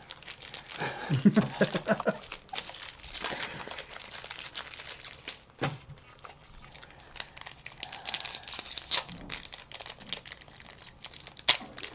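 Foil booster-pack wrapper crinkling as it is handled and torn open, with cards being shuffled.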